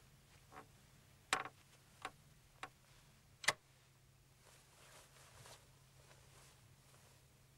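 Sharp clicks and light knocks as a small child pushes open a wooden bedroom door and steps through: about five in the first few seconds, two of them clearly louder, then a faint rustle, over a faint steady low hum.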